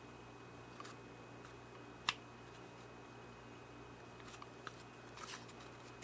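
Small metallic clicks and scrapes as the bent-over tabs of an IF coil's aluminium shield can are pried at, with a sharp click about two seconds in and a cluster of lighter ones near the end, over a faint steady hum.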